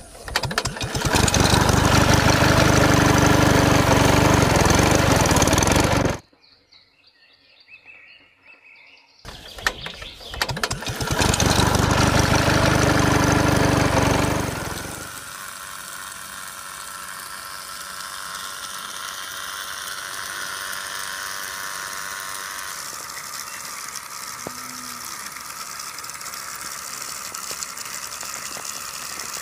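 Small motor of a miniature toy water pump running while the pump sits in shallow water, with water pouring and splashing. It is loud in two stretches of about five seconds with a brief quiet gap between, then runs on more quietly and steadily.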